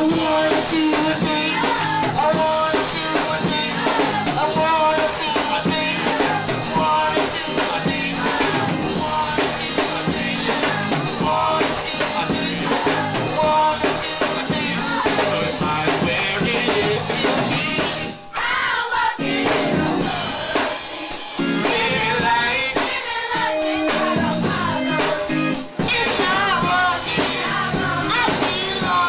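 Youth gospel choir singing an upbeat song, led by a young girl soloist on a microphone, with keyboard and drum accompaniment and hand-clapping.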